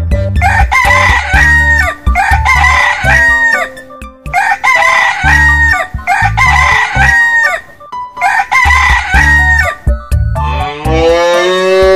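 A rooster crowing again and again over a children's music track with a steady bass beat. Near the end a cow's long moo begins.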